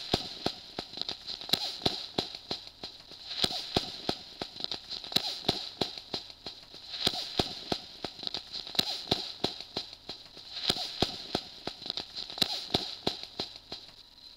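Spacey electronic sound effect: dense, irregular crackling clicks over a hiss that swells and fades about every two seconds, dying away near the end.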